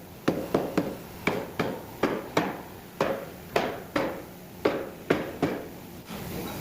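Repeated hammer blows on wood, about a dozen sharp strikes at an uneven pace of roughly two a second.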